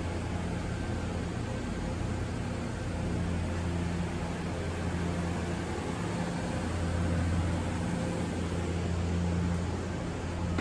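Steady low hum with a hiss of moving air from running refrigeration and ventilation equipment, such as a walk-in cooler's evaporator fans. The hum swells and eases slightly but never stops.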